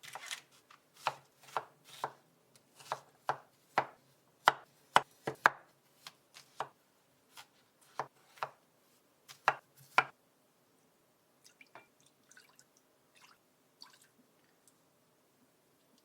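Knife chopping food on a cutting board: single sharp chops at an uneven pace for about ten seconds, then a few faint light clicks and taps.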